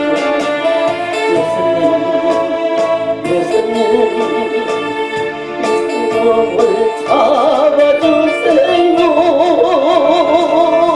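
A man singing a Korean gugak-style gospel song with strong vibrato over recorded backing music with a steady beat; the voice swells louder about seven seconds in.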